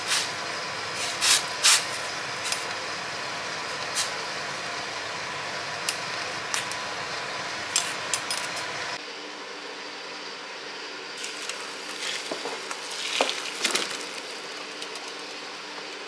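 Lotus root slices boiling in a stainless steel pot: a steady hiss from the boiling pot, with wooden chopsticks clicking against the pot, loudest in the first two seconds. About nine seconds in the boiling hiss stops abruptly, and a few light clinks and handling sounds follow.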